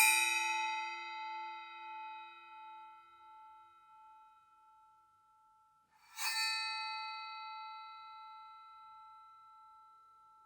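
Resonant metal ringing with several clear, steady tones. A rubbing swell peaks at the start and its ringing dies away over about four seconds. About six seconds in the metal sounds again with a sudden onset and rings on with the same tones, fading slowly.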